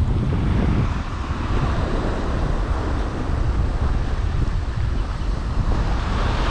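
Wind buffeting the microphone in a steady low rumble, over the continuous wash of sea waves.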